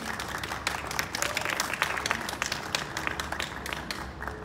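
Audience applauding, a spread of many hands clapping that thins out toward the end.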